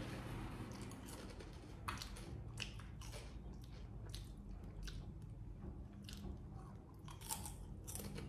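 Monkey chewing crunchy potato chips, with irregular sharp crunches between bites.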